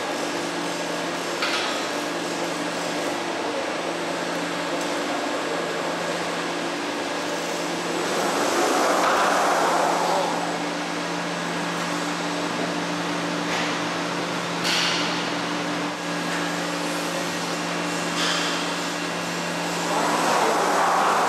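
Steady machine hum of a Hessapp VDM 1000 vertical turning center and its gantry loader, which is moving a railway wheel into the machine. Two louder swells come about eight seconds in and near the end, and a few short hisses sound along the way.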